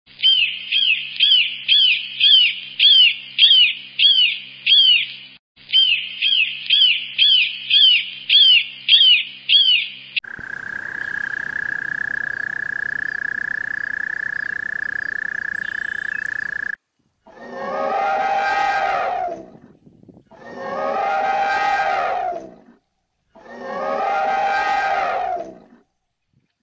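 A sequence of animal calls. A bird of prey calls rapidly, about two calls a second, for some ten seconds. Then a toad gives one steady trill of about six seconds, followed by three long, drawn-out calls from a larger animal, each about two seconds.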